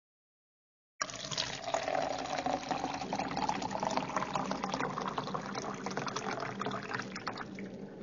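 Water pouring into a drinking glass: a steady splashing stream that starts suddenly about a second in, its tone rising slightly in pitch as the glass fills, thinning out near the end.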